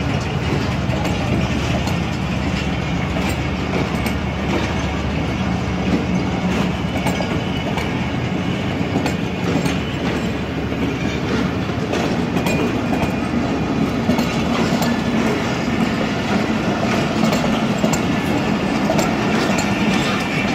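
Pakistan Railways passenger coaches rolling past close by: a steady rumble with wheels clattering over the rail joints.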